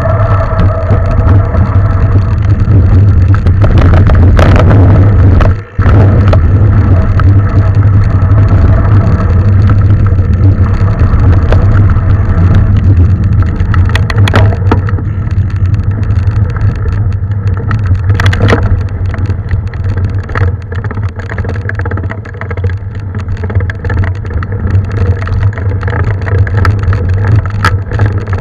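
Mountain bike being ridden on a trail, heard from a camera carried on the ride: steady wind rush and low rumble, with tyre noise and a few sharp knocks and rattles as the bike goes over bumps.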